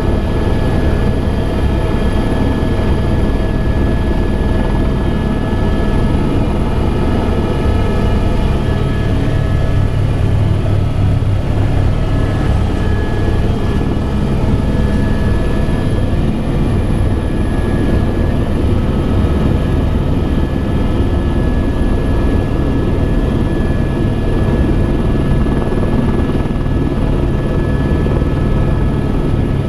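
Helicopter running steadily, a continuous loud drone with heavy low rumble and a few steady whining tones over it.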